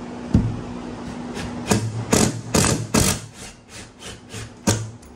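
A series of sharp knocks, about a dozen, loudest and quickest in the middle, as a long screw is driven up through the hole in a poling platform's tube.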